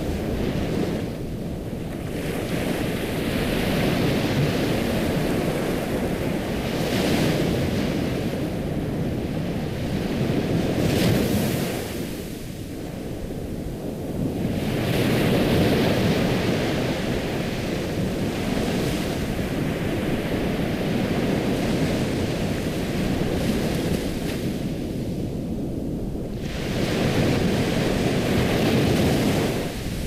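Ocean waves breaking and washing ashore, a continuous rushing that swells and eases in slow surges several seconds apart.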